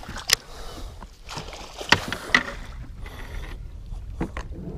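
Water slapping against the side of a fishing boat while a fish is netted at the side, with several sharp knocks of gear against the boat and a brief splash about three seconds in.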